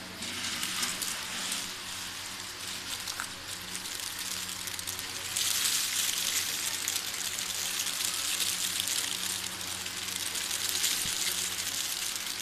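Peanuts in their shells pattering down in a stream from a steel bowl onto a heap as they are winnowed in front of a pedestal fan, over the fan's steady hum. The pattering is lighter for the first five seconds, while the bowl is being filled from the pile, and grows louder once the pouring starts.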